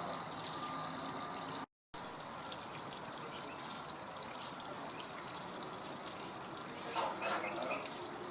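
Steady running, trickling water with faint short bird chirps over it. The sound cuts out completely for a moment at about two seconds in, and there is a brief louder flurry of sharp sounds near the end.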